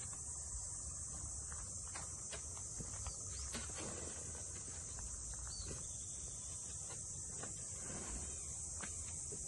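Steady, high-pitched chorus of insects such as crickets. Scattered scrapes and clicks of a shovel digging into soil and gravel sound through it.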